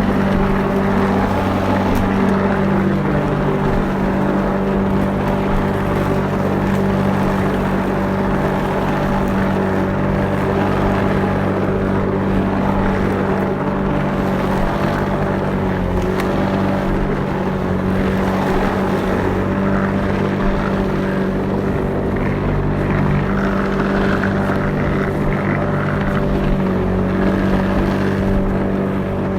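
Lawnmower engine running steadily while mowing grass, a constant even hum with a slight waver in pitch now and then.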